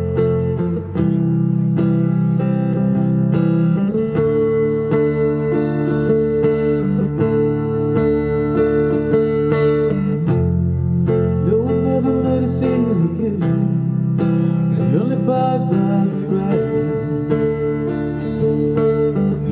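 Live band playing a soft rock song: bass and electric guitar playing sustained, steadily strummed chords, with a male singer's voice coming in about eleven seconds in and again a few seconds later.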